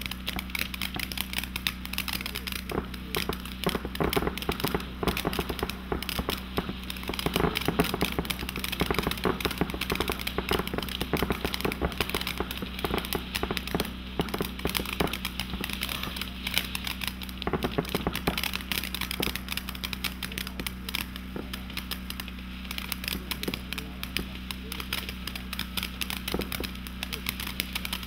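Firework fountain spraying sparks with a dense, continuous crackling, heavier about seven seconds in and again briefly near the middle.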